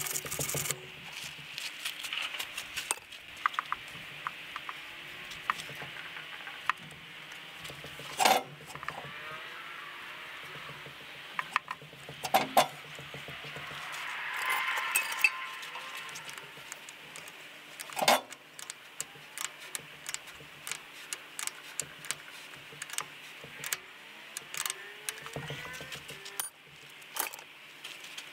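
Hand tools and metal hardware clinking and ticking as a battery cable is fitted to the tractor, with a few louder sharp knocks of metal on metal.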